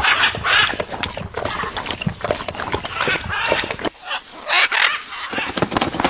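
Blue-and-yellow macaw giving a run of harsh, raspy squawks in irregular bursts.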